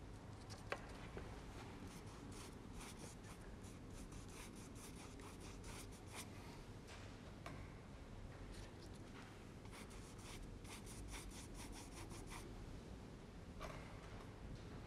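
Paintbrush scrubbing on watercolour paper in quick, short strokes, faint, with one light tap under a second in.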